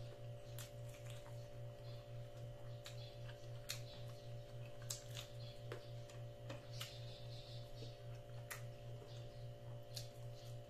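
Close-up eating sounds: scattered sharp clicks and smacks from chewing and from fingers picking at rice and saucy pork in a takeout tray, about one a second at irregular intervals. Under them runs a steady low electrical hum.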